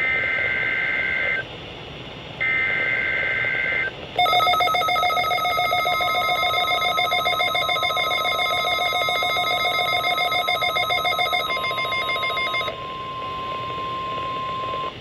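NOAA Weather Radio weekly-test signals: two one-second bursts of the SAME digital header, a shrill data warble, then about four seconds in a loud, rapidly pulsing electronic alarm. About six seconds in the steady 1050 Hz warning alarm tone joins it and carries on alone after the pulsing alarm cuts off, until just before the announcement.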